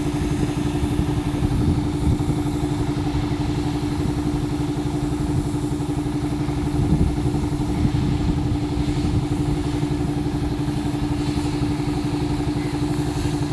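Road roller's engine running steadily, a constant hum over a low rumble.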